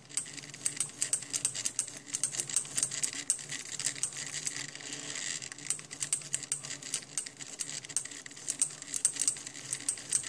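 Homemade mini SCARA pen plotter writing: its small half-stepping stepper motors buzz and chatter as the arms move, with a rapid, irregular run of sharp clicks from the mechanism and the solenoid pen lifter raising and dropping the pen between strokes.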